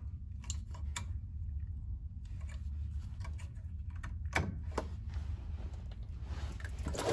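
Scattered light metallic clicks of clip pliers working the hose clamp on a power steering pump hose, over a steady low hum. Right at the end a louder rush begins as power steering fluid starts to spill from the loosened hose.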